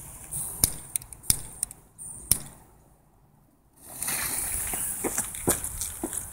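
A few sharp clicks in the first two seconds, then after a short pause Nico Flashballs go off from about four seconds in: a steady fizzing hiss with scattered crackles as they throw sparks.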